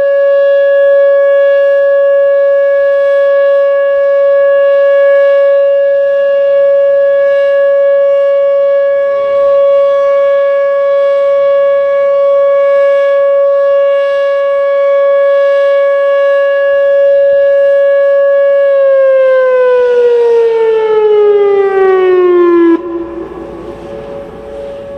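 Whelen WPS-2807 electronic outdoor warning siren sounding its steady 560 Hz alert tone, loud and unbroken. About three-quarters of the way through, the pitch glides down as the 3-minute alert ends, then the tone cuts off suddenly and only a faint tone lingers.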